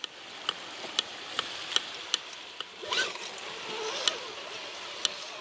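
Electric motor whine of radio-controlled scale rock crawlers, wavering up and down with the throttle and rising sharply about three seconds in, with sharp ticks every half second or so, over a steady hiss of running water.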